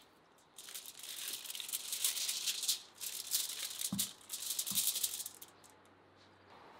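Aluminium foil crinkling and rustling as a raw whole chicken is pushed along a steel rotisserie spit lying on it, with two soft low thumps about four and five seconds in.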